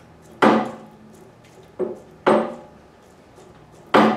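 Four sharp metal knocks, each with a brief ring, spaced a second or two apart, from the steering head of a 1978 Suzuki GS550 as its stem nut is snugged up with a notched spanner and the stem is turned to feel for heaviness.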